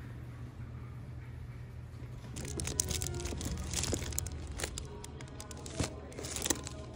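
Plastic-wrapped packages of silicone craft mats crinkling and clacking as a hand flips through them on a store display rack, with a run of crackles starting about two and a half seconds in, over a steady low hum.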